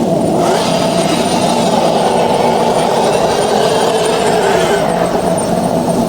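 Dragon sound effect: a long, low, rough roar that swells about half a second in and eases off near five seconds.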